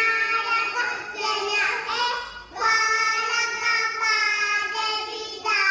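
A child singing a song in long held notes, with a short break about two and a half seconds in.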